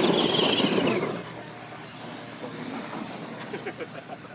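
R/C monster truck running across dirt, its motor whine falling in pitch as it slows, with the sound dropping away suddenly about a second in to a much quieter background.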